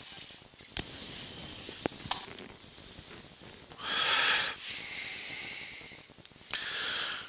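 A person breathing close to the microphone, with a long hissy exhale about four seconds in and a shorter one near the end, and a few faint clicks of handling.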